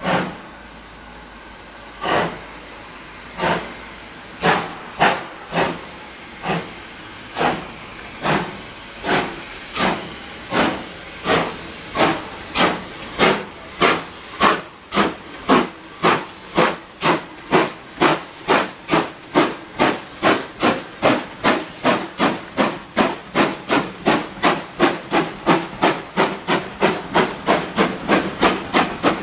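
Exhaust of BR Ivatt Class 2MT 2-6-2 tank locomotive 41312 chuffing as it pulls away with its train, the beats starting about two seconds apart and quickening steadily to around three a second.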